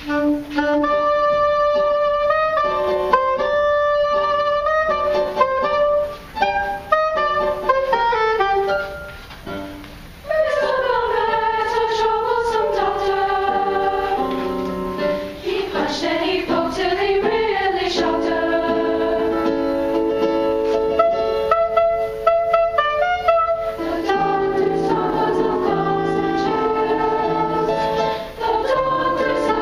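Middle-school girls' choir singing, with pitches gliding up and down and later several parts holding notes together in chords, after a short pause about ten seconds in.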